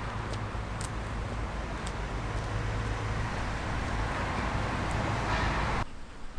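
Steady outdoor background rumble and hiss with a low hum, like distant road traffic, cutting off suddenly near the end.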